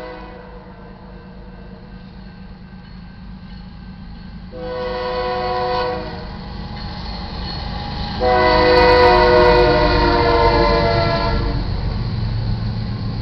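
GE ES44DC diesel locomotive's air horn sounding for a grade crossing: a short blast about four and a half seconds in, then a louder long blast of about three seconds starting around eight seconds in. The low rumble of the approaching locomotive grows underneath toward the end.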